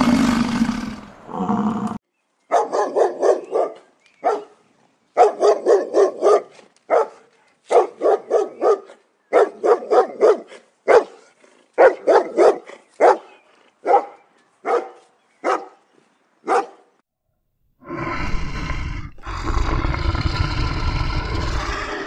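A dog barking in quick runs of three to five sharp barks, over and over for about fifteen seconds. A loud roar fades out just before the barking begins, and a different, harsher animal sound with a low rumble starts near the end.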